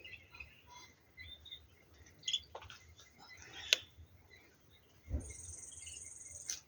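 Wild birds chirping in a morning dawn chorus, with a sharp click about halfway through and a low thump near the end, followed by a steady high-pitched buzzing trill lasting about a second and a half that cuts off suddenly.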